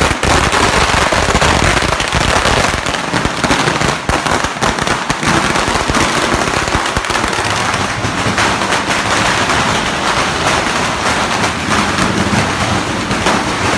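A string of firecrackers going off in a rapid, unbroken crackle of small bangs, loud throughout.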